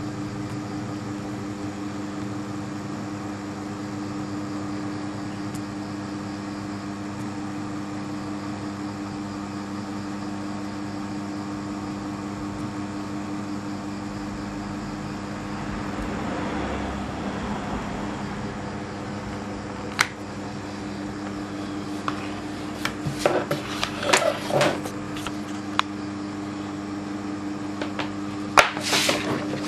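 Steady mechanical hum, like a fan or air conditioner running. About two-thirds of the way in a few sharp clicks and knocks start, growing louder and more frequent near the end.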